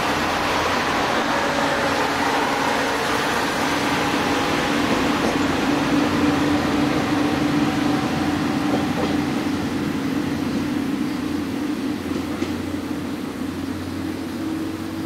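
Honobono SUN-IN diesel railcar set passing close by and pulling away: a steady diesel drone mixed with wheel-on-rail noise. It fades over the last few seconds as the train recedes.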